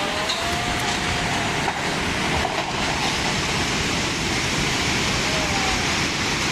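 Steady loud roar of rushing water, with no breaks or strikes in it.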